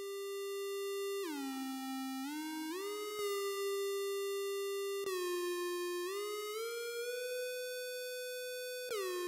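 Background music: a single theremin-like synthesizer voice playing a slow melody of held notes, sliding smoothly up or down from one pitch to the next.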